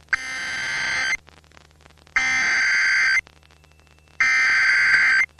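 Emergency Alert System SAME header: three bursts of warbling digital data tones, each about a second long and about a second apart. The header encodes the flood warning that the voice message then reads out.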